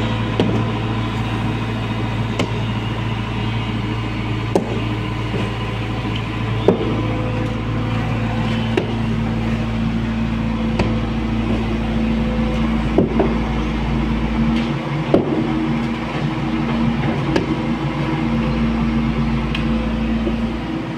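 SANY 140 hydraulic excavator's diesel engine running steadily under digging load, with a handful of short sharp knocks scattered through as the bucket and boom work the soil.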